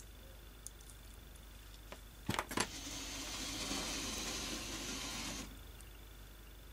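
A small screwdriver clicking into a tiny bolt, then about three seconds of steady scraping as the bolt is screwed into a model locomotive's chassis to hold the bogie; it stops suddenly.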